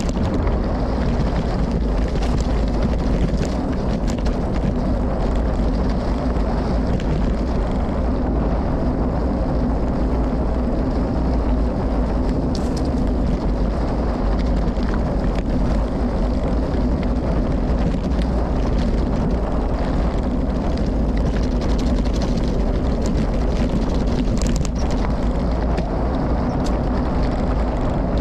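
Wind rushing steadily over the microphone of a gravel bike riding a dirt trail, with tyre noise and scattered small clicks and rattles from the bike.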